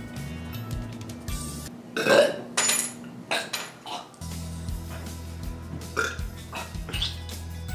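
A man gagging and retching, with several loud heaves, the loudest about two seconds in and a few weaker ones later, over background music with a steady bass line.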